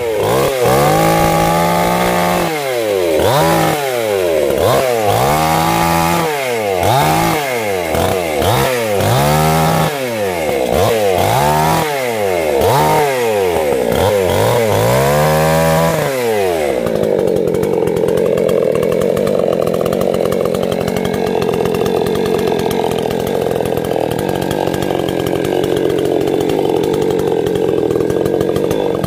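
Two-stroke chainsaw revved up and down again and again, about three revs every four seconds, then held at a steady, lower-pitched run for the second half as it cuts into the tree trunk under load.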